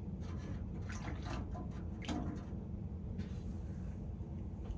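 Faint light clinks and small splashes as tongs fish parts out of the water in an ultrasonic parts cleaner's tank, over a low steady hum.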